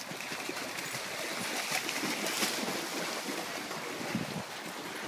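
Shallow stream running over stones while dogs wade and splash through it.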